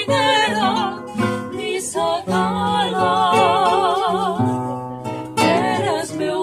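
Several women singing a habanera together with vibrato, accompanied by an acoustic guitar.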